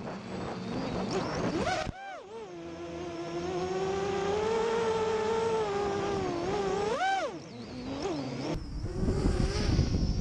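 FPV quadcopter's brushless motors whining, the pitch swooping up and down with the throttle, holding fairly steady through the middle, then swooping again. In the last second and a half, gusty wind noise on the microphone takes over.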